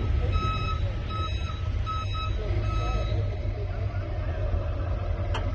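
A vehicle's reversing alarm beeping, one high beep about every two-thirds of a second, stopping about three seconds in, over the low rumble of idling vehicles.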